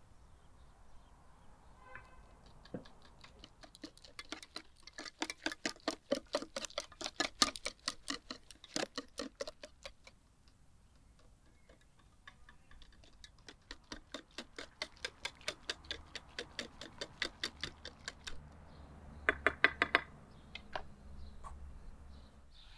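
Wire whisk beating batter in a white enamel bowl: a fast, rhythmic run of clinks against the bowl, in two long bouts with a short pause between, the last strokes loudest.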